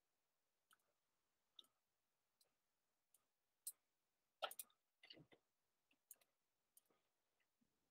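Faint, scattered clicks of a computer mouse being clicked, about a dozen spread irregularly, with a louder quick run of clicks about halfway through.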